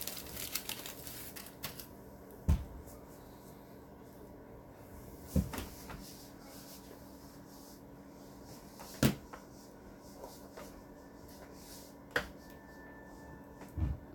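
About five separate knocks and bumps a few seconds apart over quiet room tone, from someone moving about and handling things by a chair.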